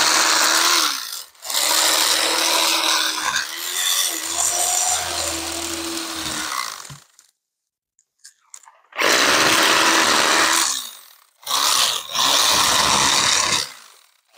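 Electric fillet knife cutting a red drum fillet along the backbone and ribs. Its motor is switched on and off in about six runs of one to three seconds, each one spinning up and then winding down.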